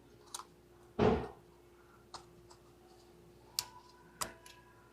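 Sharp single clicks of plastic electrical connectors being handled and snapped onto fuel injectors, a few seconds apart, with one louder short burst of noise about a second in.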